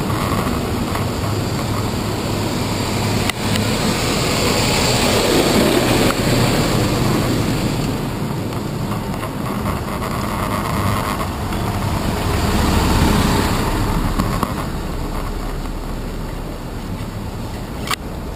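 City street traffic heard from a bicycle through a handlebar-mounted camera: engines and tyres of cars, taxis and a bus close by, a steady noise that swells twice as vehicles pass. A sharp click near the end.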